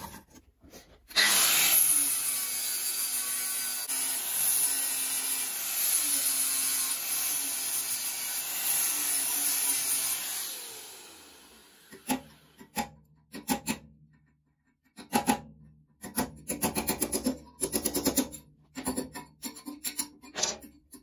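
Angle grinder with a flap disc grinding the edge of a metal motorcycle inlet manifold flange for about nine seconds, then spinning down with a falling whine. After that come short runs of sharp metallic taps from a hammer and punch knocking the old pieces of tube out of the flange.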